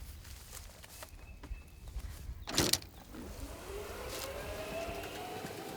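A sharp knock about two and a half seconds in, then a golf cart moving off, its motor's pitch rising steadily as it gathers speed.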